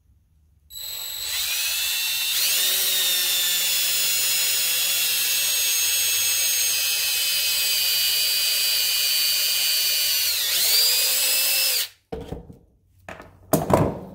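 DeWalt cordless drill running at high speed for about ten seconds with a steady whine, boring a relief in an end cap for a wire to pass through; its pitch dips briefly near the end before it stops suddenly. A few short clatters of tools being set on the bench follow.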